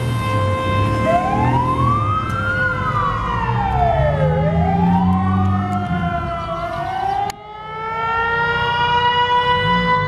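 Fire sirens: a steady pitched siren tone holds throughout while a wail siren glides up and down twice over it. About seven seconds in the sound drops off abruptly, then the steady tone comes back slowly climbing in pitch, over a low rumble.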